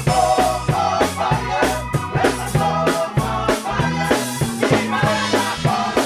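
Live gospel band playing an upbeat song: a drum kit keeping a steady beat under an electric bass line, with voices singing over it.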